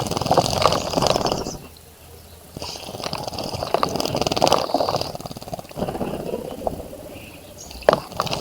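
Birds splashing and fluttering their wings in a birdbath's water, in three bursts of a second or two each with short pauses between, and a sharp tick near the end.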